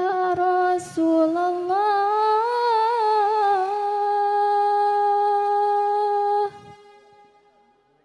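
A woman singing a sholawat phrase solo and unaccompanied into a microphone: one long melismatic line that breaks briefly about a second in, wavers through ornaments in the middle, then is held on a steady note until it stops about six and a half seconds in.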